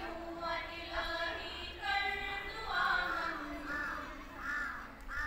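Schoolchildren singing a Kashmiri prayer song (dua) together, in slow melodic phrases.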